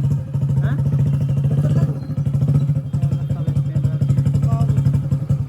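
Hero Splendor motorcycle's single-cylinder four-stroke engine running steadily, a fast even putter of firing pulses.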